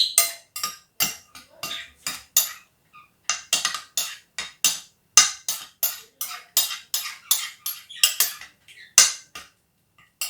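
A spoon stirring a wet mix of grated ginger, onion and lemon juice in a bowl, knocking against the sides in quick clinks about four a second. It pauses briefly about two and a half seconds in and again near the end.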